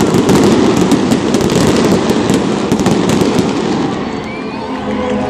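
Stadium pyrotechnic spark fountains firing with a dense, loud crackle, thinning out about four seconds in.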